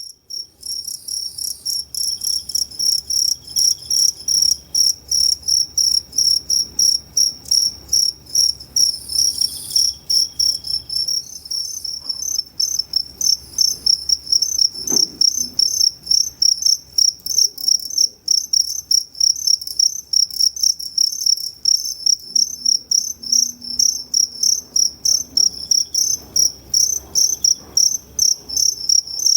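Two-spotted crickets (Futahoshi crickets) chirping loudly and high-pitched, several chirps a second. The chirps run faster and less evenly for roughly the first ten seconds, then settle into a steady, regular rhythm.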